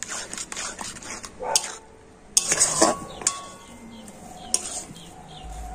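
A metal spatula stirs and scrapes thick semolina dough around a metal wok, in irregular strokes with sharp clinks against the pan. The semolina is being cooked down with milk over a low flame until it sets into a stiff dough.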